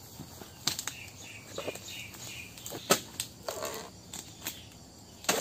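Oil palm harvesting with a pole-mounted chisel (dodos): several sharp knocks as the blade is jabbed at the fruit-bunch stalk, the loudest about three seconds in, with a brief rustle of palm fronds.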